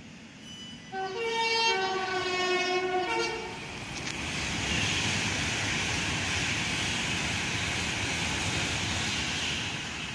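An electric train's two-tone horn sounds for about two and a half seconds, switching between a lower and a higher note. It gives way to the steady rumble and hiss of a train running on the line.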